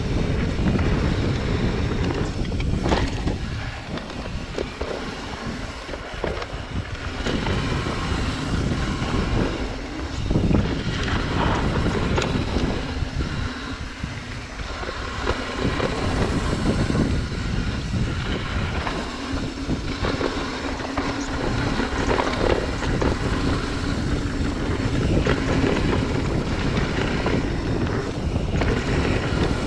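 Wind buffeting a chest-mounted action camera's microphone, mixed with the rumble and rattle of a mountain bike rolling fast over dry dirt singletrack. The noise eases a little a few seconds in and again near the middle.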